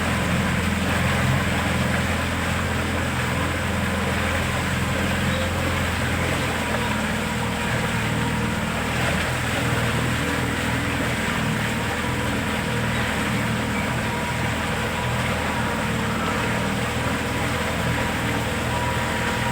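Motorboat engine running steadily, with an even low drone.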